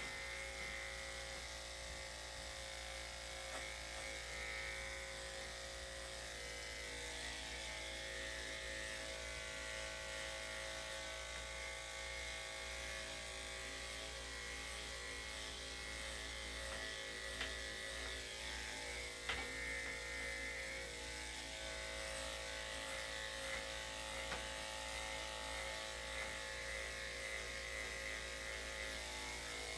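Electric dog clippers running steadily while clipping a miniature poodle's coat, then switched off right at the end.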